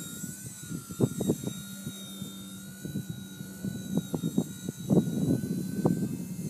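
Whine of a Blade mCP X micro RC helicopter's electric motor and rotor, its pitch wavering slightly as it fights the wind. Strong wind gusts buffet the microphone in irregular loud thumps, the loudest at about one second, four seconds and five seconds in.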